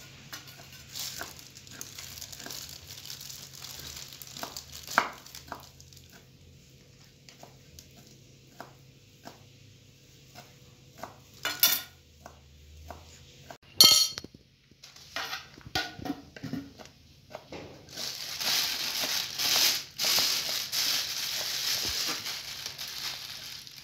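Scattered light clicks and clinks of kitchen utensils against a glass bowl, with a couple of louder knocks midway. For the last several seconds, a dense, rapid run of knife chops on a wooden cutting board as two knives chop boiled chicken gizzards.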